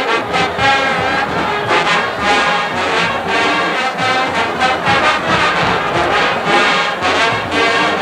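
Marching band brass playing a swing-era big band tune, horns carrying the melody over a steady drum beat.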